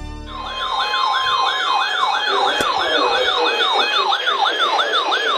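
Electronic siren: a steady tone for about a second and a half, then a fast yelp of repeated rising sweeps, about three or four a second.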